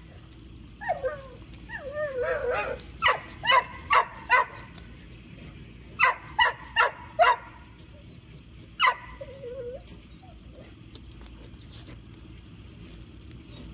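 A dog barking in two quick runs of four sharp barks, then a single bark, with high whining before the first run and after the last bark.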